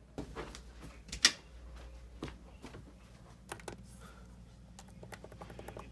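Irregular clicks and taps of a computer keyboard and mouse, with one louder click about a second in, over a low steady hum.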